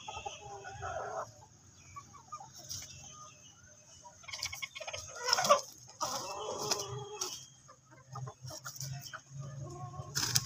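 Flock of desi chickens, golden aseel among them, clucking while they peck at scattered grain. There is a louder run of calls about four to seven seconds in, with short clicks of pecking and scratching between calls.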